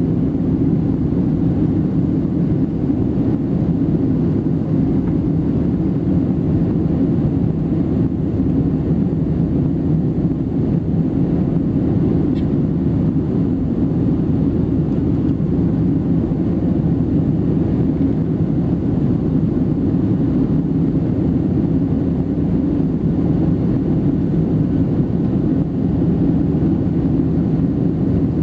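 Boeing 737-700's CFM56-7B jet engines and airflow heard from inside the passenger cabin: a steady, loud, low rumble.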